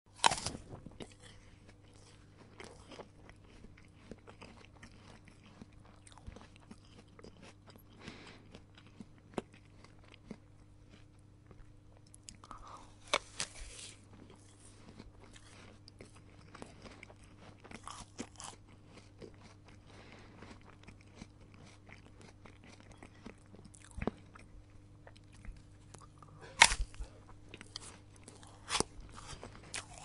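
A person biting into and chewing an apple: irregular crunches all through, with the loudest bites at the very start and about 27 seconds in. A faint steady low hum runs underneath.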